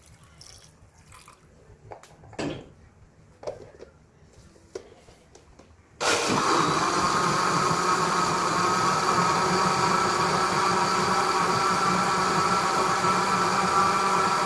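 Electric blender switched on about six seconds in, its motor running steadily as it blends the cooled sugar-water mixture with the other ingredients. Before that come a few light knocks and clicks of handling.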